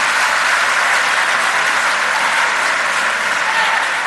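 Loud, steady applause from a large crowd of members of parliament filling the chamber.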